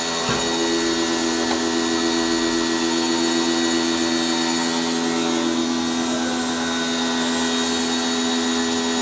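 An electric motor-driven machine running steadily with a constant whine over a rushing noise, with a single click about a third of a second in.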